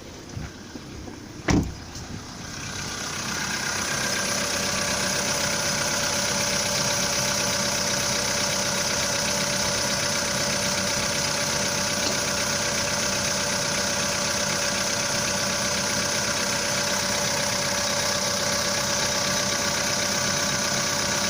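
Volkswagen Polo Sedan's 1.6-litre four-cylinder petrol engine idling steadily just after a cold start, with every electrical load switched on, which is meant to damp its cold piston knock. Only a faint light tapping is left, which owners put down to the pistons. A single thud comes about a second and a half in, before the engine grows louder and closer.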